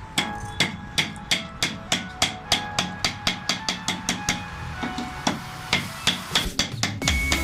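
A hammer striking metal in a steady rhythm, about three blows a second, each blow leaving a brief metallic ring.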